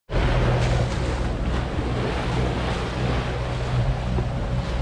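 Sailboat under way in rough water: wind buffeting the microphone and water washing along the hull, over a steady low drone.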